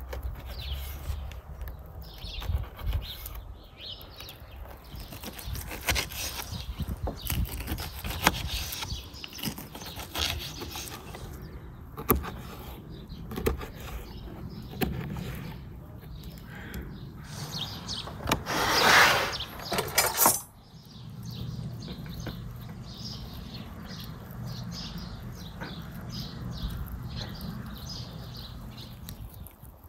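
A knife cutting and trimming raw lamb ribs on a wooden board, with knocks of the blade against the board and wet handling of the meat. About two-thirds through there is a louder burst of scraping noise lasting about two seconds.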